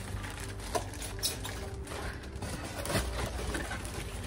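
Plastic wrapping rustling and crinkling as a food processor's plastic-bagged work bowl is lifted out of its box, in small irregular handling noises over a low steady hum.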